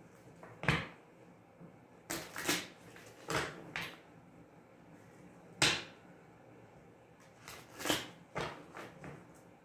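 A tarot deck being shuffled by hand: short, crisp slaps and rustles of cards at irregular intervals, about nine in all, the sharpest about halfway through.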